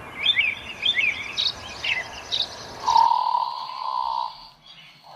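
Birds chirping, several short calls over a background hiss, which cut off suddenly about three seconds in and give way to a steady tone lasting about a second and a half.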